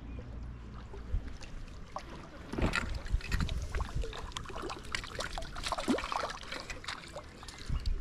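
Water splashing and sloshing close by, with many irregular small clicks and knocks through the middle few seconds.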